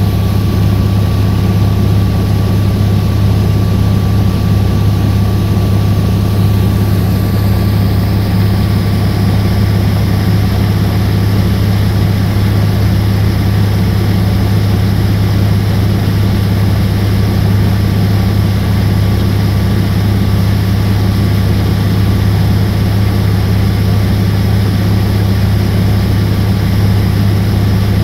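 Small fiberglass passenger boat's engine running at a steady cruising speed, a constant deep hum heard from on board with a rushing hiss over it.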